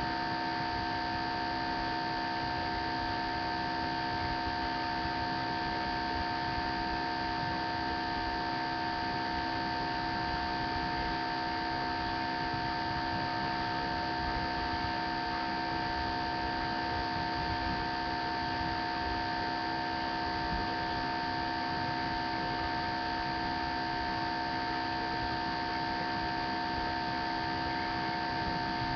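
Steady electrical hum: several fixed tones over a constant hiss, unchanging throughout, with no other sound.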